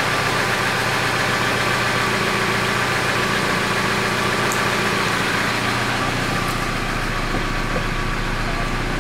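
GAZelle van's engine idling steadily, with a low hum coming in about six seconds in.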